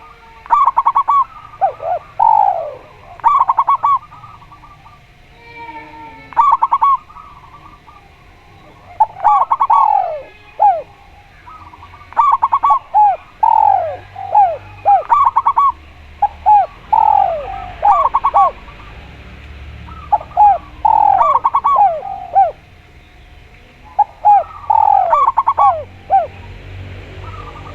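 Doves cooing: a spotted dove (tekukur) and a zebra dove (perkutut) calling in repeated phrases of quick coo notes, many falling in pitch, a new phrase every two or three seconds.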